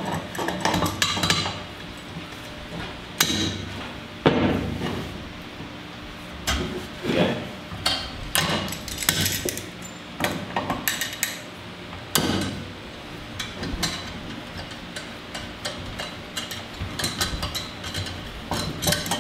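Locking pliers (vice grips) gripping and working a tight temperature probe out of a marine diesel's inlet manifold: irregular metallic clicks, knocks and clinks of tool on fitting.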